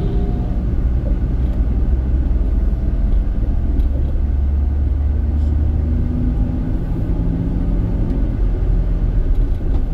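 Steady low rumble of a moving vehicle heard from on board, with a faint engine hum coming through about halfway.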